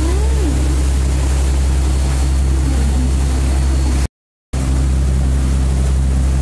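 Ferry engine running with a steady low drone over the rushing, churning water of the propeller wake. The sound cuts out completely for about half a second around four seconds in.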